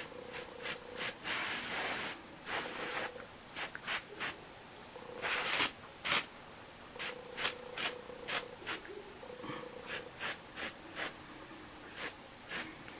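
Aerosol can of Sally Hansen Airbrush Legs tinted leg spray, sprayed in about twenty short hissing bursts. Three longer sprays of roughly half a second to a second come near the start and around the middle.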